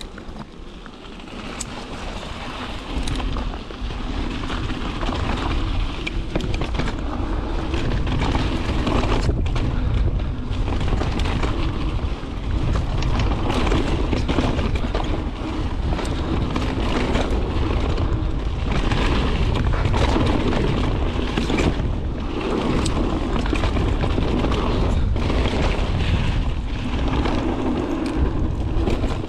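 Santa Cruz mountain bike riding fast down a dirt singletrack. Wind buffets the microphone over the rumble of tyres on dirt, with frequent knocks and rattles as the bike goes over bumps. It grows louder over the first few seconds and then holds steady.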